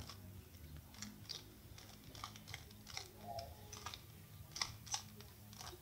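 Faint, irregular plastic clicks of a bandaged 3x3 puzzle cube (Isaev's Fused Bi-Clock Bandaged) as its layers are turned by hand through a move sequence.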